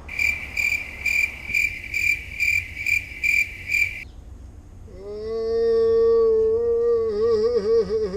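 Cricket chirping at about two chirps a second for roughly four seconds, starting and stopping abruptly. About a second later a long held musical note comes in, like a slide guitar, its pitch wavering near the end.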